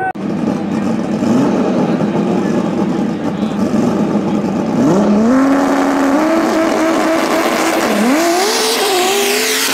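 Engines of two drag race cars at the start line, one of them the turbocharged RB30-engined VW Scirocco, running rough for the first few seconds. About halfway through an engine revs up and is held at high revs, its pitch stepping higher twice before the launch.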